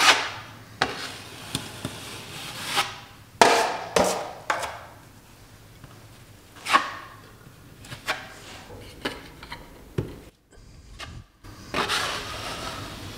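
Steel drywall knife packing and scraping thick 20-minute setting-type joint compound into a hole in drywall: irregular scrapes and slaps of the blade on the mud and wall, with a few sharper knocks.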